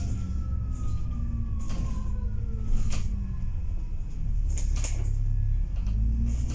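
Dennis Trident 2 double-decker bus heard from inside on the upper deck: a diesel engine rumble with a drivetrain whine that glides steadily down in pitch, and a few knocks and rattles. The engine grows louder about four seconds in.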